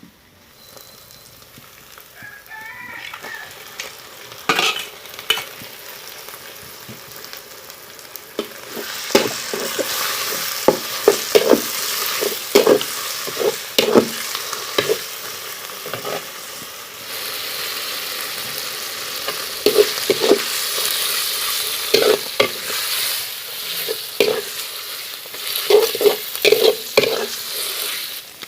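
Food sizzling in hot oil in a pan while a utensil stirs it, knocking and scraping against the pan many times. The sizzle builds up and gets louder about nine seconds in.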